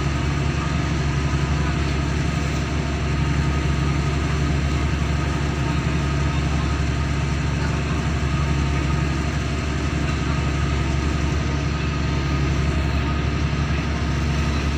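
Ferry's engine running steadily under way: a constant low drone with a rush of water and wind over it.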